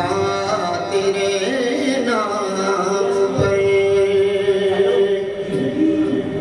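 A man singing a naat, a devotional Urdu poem, into a microphone. He holds one long note from about a second in for several seconds, with shorter wavering notes around it.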